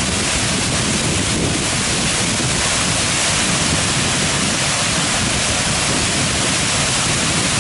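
Waterfall pouring into a rock plunge pool: a loud, steady rush of falling water.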